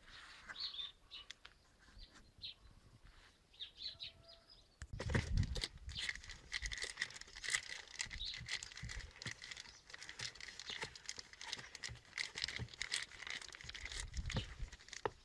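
Paper wrapping crinkling and tearing as it is pulled off a new tailgate gas strut, starting about five seconds in.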